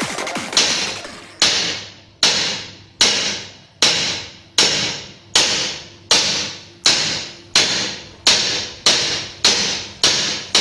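Hammer striking a stainless steel pipe barbell, about fifteen hard, evenly paced blows with a metallic ring after each, quickening slightly near the end.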